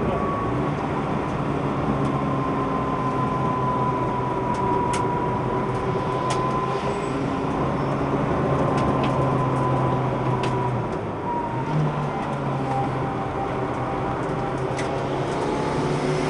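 Track car's engine heard from inside the car, running steadily under load. About eleven seconds in it breaks off briefly, then picks up at a higher pitch and slowly falls.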